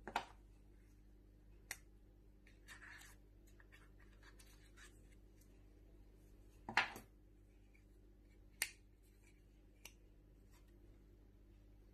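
Scattered sharp clicks and taps, the loudest about seven seconds in, with a brief rustle about three seconds in, over a faint steady hum. These are the handling sounds of a phone and its box being unpacked.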